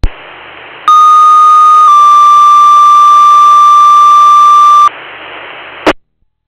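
Fire-dispatch two-tone paging alert over a scanner radio: a steady tone for about a second, then a slightly lower tone held for about three seconds. Radio static hisses before and after, and a squelch click cuts it off just before the end.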